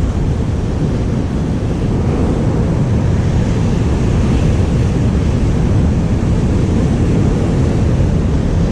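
Wind buffeting the microphone over the wash of rough sea surf: a steady, loud, low noise with no break.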